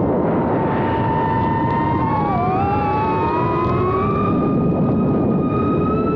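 Small FPV quadcopter's 1303-size motors and propellers whining, heard from the onboard camera over a heavy rush of prop wash. The pitch dips about two and a half seconds in, then climbs and holds higher as the throttle comes up.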